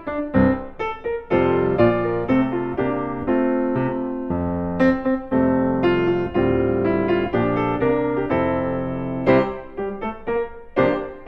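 Background piano music: notes struck singly and in chords, ringing out and decaying.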